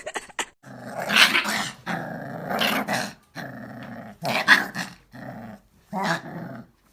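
A dog growling in about five rough bouts of a second or so each, with short pauses between them.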